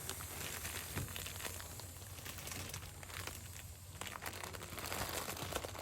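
Crinkling and rustling of nylon or plastic as an inflatable camping mattress is pressed down to squeeze the air out, with many small crackles.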